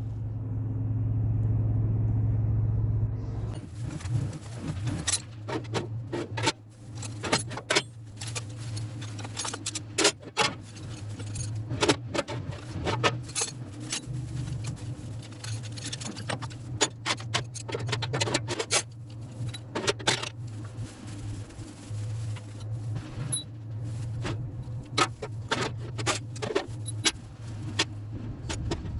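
Metal clinking and knocking, many irregular sharp clicks, with a steady low hum underneath that is louder for the first few seconds.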